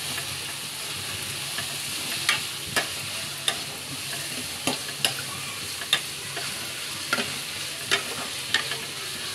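Shredded cabbage and masala sizzling in a metal kadhai as a spatula stirs it, with a steady frying hiss and irregular sharp clicks and scrapes of the spatula against the pan.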